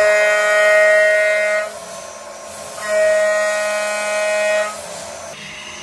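CNC router's axis servo motors whining in two steady, even tones during machine moves, the first lasting under two seconds and the second starting about three seconds in, with a low steady hum underneath.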